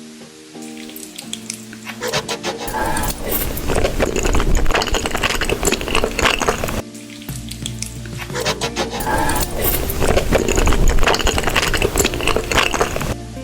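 Background music with a beat: a phrase that opens with soft held notes and then fills out, starting over from the top about seven seconds in.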